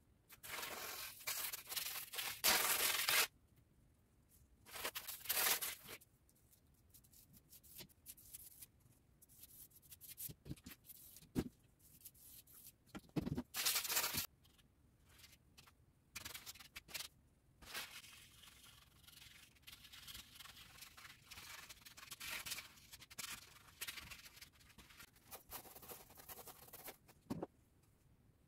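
Paintbrush scrubbing paint onto a stretched canvas in rasping strokes. A long pass of nearly three seconds comes first, then single passes about five and thirteen seconds in, then a run of short strokes.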